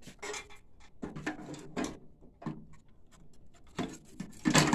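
Epson 1500W printer chassis being picked up and handled: a series of knocks and clatters, with a louder knock near the end.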